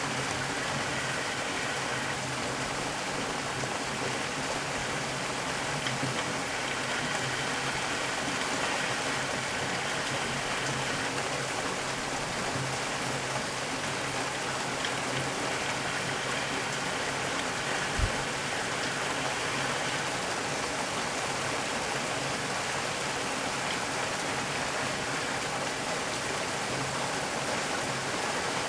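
Heavy rain falling steadily, a dense even hiss. About two-thirds of the way through there is a single brief, sharp knock.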